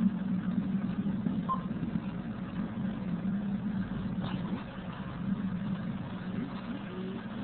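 Dirt bike engine running at low revs, swelling and easing a little with the throttle.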